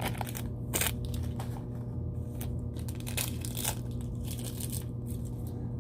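Plastic wrapper crinkling and crackling in irregular bursts as a small toy packet is opened by hand, over a steady low hum.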